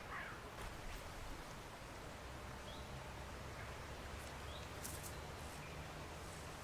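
Faint riverside ambience: a steady low background hiss with a few short, faint bird chirps and a couple of soft clicks.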